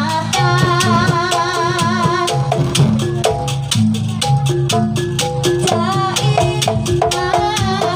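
Jaranan music from the accompanying gamelan ensemble: fast, even percussion strikes about five a second under a wavering melody line and steady low notes.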